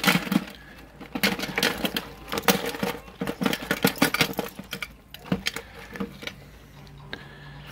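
Dug metal junk (pull tabs, bottle caps, shotgun shell heads) clattering out of a metal-detecting finds pouch onto a metal baking tray. It is a dense run of rattling clinks for about five seconds, then a few last clinks.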